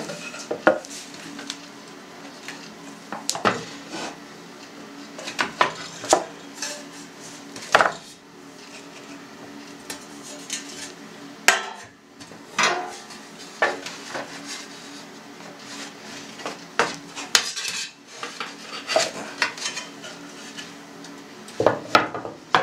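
Stainless steel trays clanking and a wooden board knocking as they are shifted and set in place under a plastic cheese mould. The knocks and clatters come irregularly, a few every couple of seconds.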